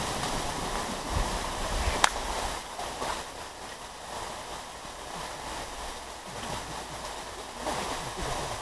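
The dying rumble of a small homemade explosive charge that has just blown apart a computer monitor, fading over the first couple of seconds, with one sharp click about two seconds in; after that only a steady, even noise remains.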